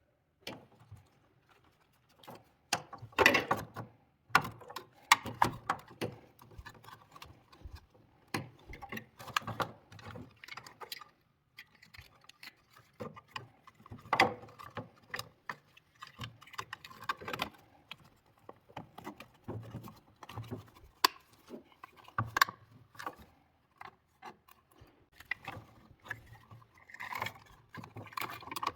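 Irregular clicks, taps and knocks from hard parts being handled and fitted while working on a cordless drill battery pack.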